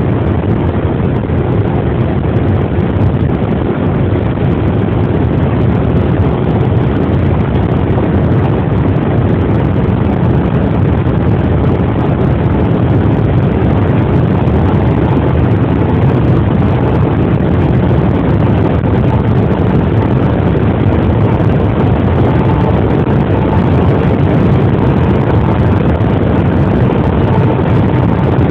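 Cabin noise of an Audi A6 3.0 TDI quattro accelerating hard at about 200 to 245 km/h: the V6 turbodiesel pulling under load beneath heavy wind and tyre noise. The sound is loud and steady and grows slightly louder as the speed climbs.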